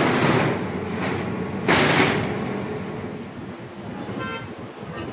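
Large steel sheet scraping across the slatted bed of a CNC cutting table: a sudden loud scrape about two seconds in that trails off, then a short metallic squeal near the end.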